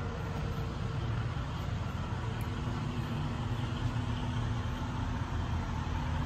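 A vehicle's engine running steadily: a low, even rumble with a faint steady hum above it.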